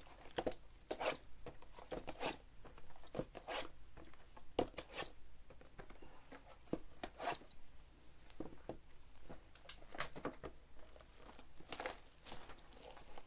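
Plastic shrink wrap on trading card boxes crinkling and tearing as it is handled and pulled open, in irregular crackles.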